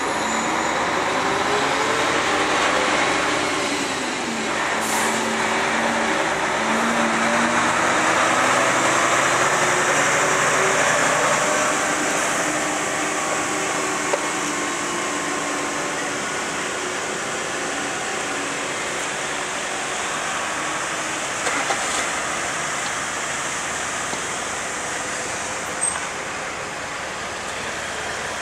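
Diesel engines of heavy-haul trucks pulling oversized trailers at walking pace, their engine pitch rising and falling through the first twelve seconds or so, then settling into a steady din of engines and tyres.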